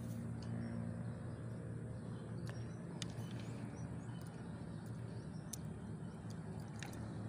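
Lakeside outdoor ambience: a steady low hum under faint bird chirps, with a few sharp light clicks scattered through.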